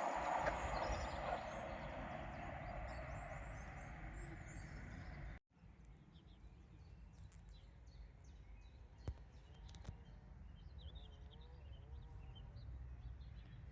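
The noise of a passing train fades away over the first five seconds. After an abrupt cut, birds chirp against a quiet background.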